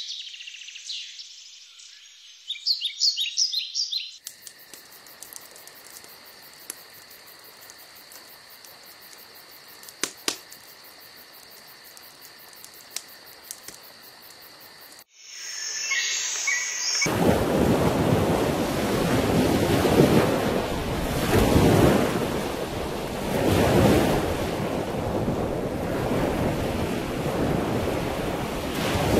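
Outdoor nature sounds in sequence: high chirping bird calls, then a steady high buzz with faint ticking, then loud surf of waves washing in, swelling and easing every couple of seconds.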